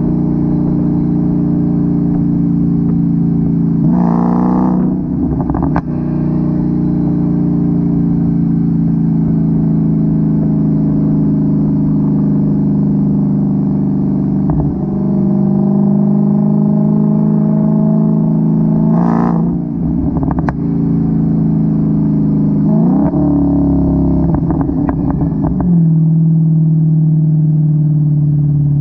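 Dodge Challenger SRT Hellcat's supercharged 6.2-litre Hemi V8 running through its stock exhaust, its pitch rising and falling several times as the revs change. Clusters of sharp crackles and pops from the exhaust come as it decelerates, a few seconds in, past the middle and near the end.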